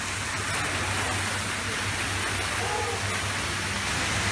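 Steady rushing hiss of a themed geyser effect: water churning and jets of steam or spray blowing out beside the ride track, with a low hum beneath.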